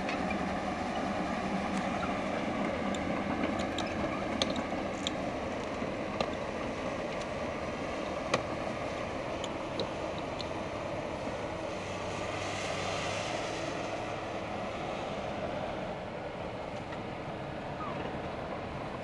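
Komatsu PC220LC-7 tracked excavator's diesel engine running steadily as the machine travels on its tracks, with a few sharp clanks in the first half.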